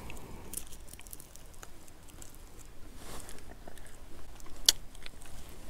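A person chewing and picking at cooked fish by hand, with small clicks and rustles and one sharper click a little before the end.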